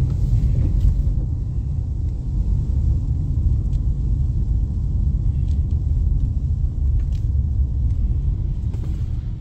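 Steady low rumble of a car driving on a wet road, heard inside the cabin, with a few faint ticks.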